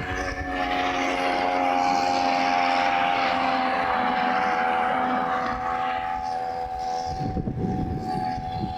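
Small two-stroke chainsaw engine on a motorised bicycle running steadily at high revs with an even, unchanging pitch. A rougher low rumble joins it about seven seconds in.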